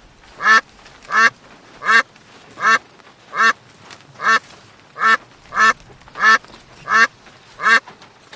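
A duck quacking over and over in an even rhythm: about eleven short quacks, a little under one a second.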